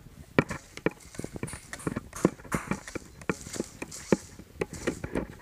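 Small RC toy car clattering as it spins on a hard floor: irregular clicks and knocks, several a second.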